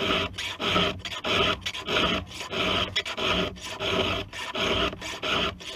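Hand file rasping across the cutter teeth of a chainsaw chain, steady back-and-forth strokes about two a second: the chain being sharpened by hand.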